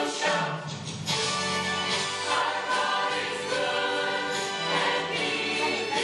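Mixed church choir of men's and women's voices singing a hymn together in harmony.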